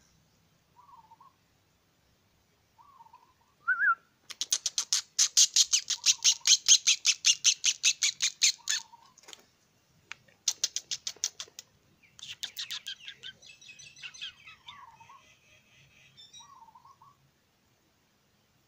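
A bird chattering: three bouts of rapid high-pitched notes, about ten a second, the longest lasting about four seconds, with a few short, soft wavering calls between them.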